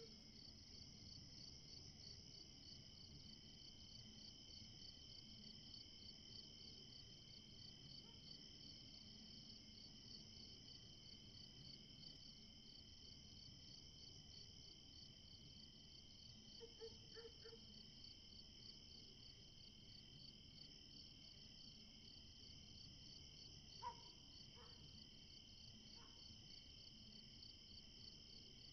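Faint, steady chirring of crickets at night, a fast even trill that runs on without a break, with a few soft ticks about two-thirds of the way through.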